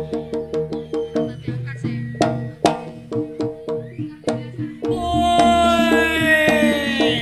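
Jaranan gamelan accompaniment: drum strokes over a repeating pattern of tuned gong and metallophone notes. About five seconds in, a loud held note enters and slides down in pitch.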